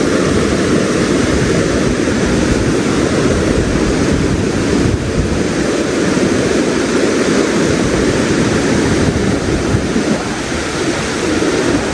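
Steady, loud rush of a fast, cold mountain stream.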